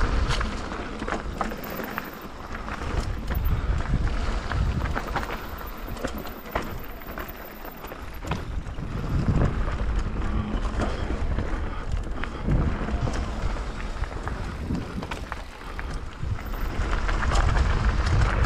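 Wind buffeting a GoPro's microphone as a mountain bike rolls down a dirt and gravel flow trail, the rumble swelling and easing with speed. Tyres crunch over the gravel and the bike gives short rattles and knocks over bumps.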